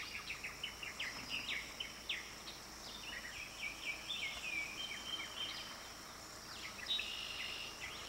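Northern mockingbird singing, running through many different short phrases, each repeated a few times, over a steady high insect drone.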